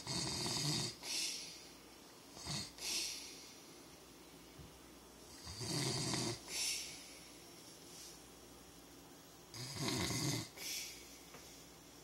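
A sleeping man snoring: a loud, rattling snore on each in-breath, followed by a short breathy out-breath. Three strong snores come about four to five seconds apart, with a weaker one about two and a half seconds in.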